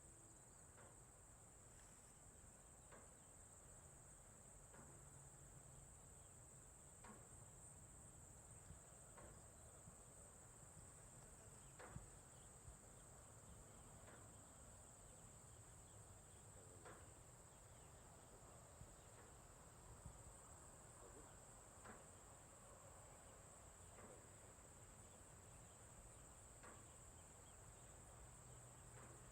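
Quiet outdoor night ambience: crickets chirring in one steady, unbroken high-pitched drone, over a faint low rumble, with soft ticks about every two seconds.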